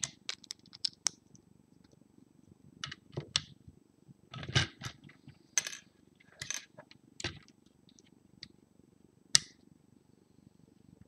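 Plastic LEGO pieces clicking and tapping as they are picked up from the table and pressed onto the model: a string of irregular small clicks, with one sharper snap about nine seconds in.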